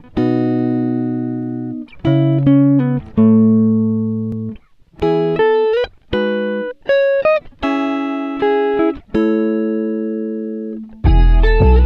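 Background music: plucked guitar notes played as a slow melody, each note ringing and fading. About eleven seconds in, a fuller section with a heavy bass line comes in.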